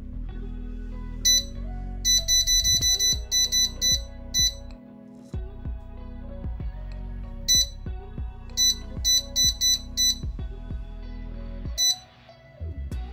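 Air fryer touch-control panel beeping with each button press: single short high beeps and quick runs of beeps as the temperature setting is stepped down, over background music.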